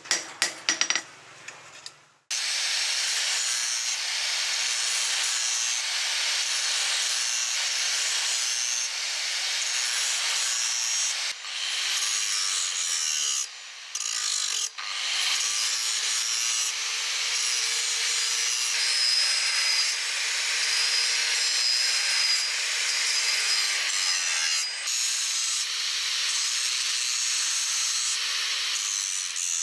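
A few quick hammer blows on a bent steel blade over a small anvil at the start. Then an angle grinder with an abrasive disc grinds the edge of a plow-steel blade with a steady hissing rasp, its motor pitch sagging and recovering a few times as the disc is pressed in, with a few brief breaks.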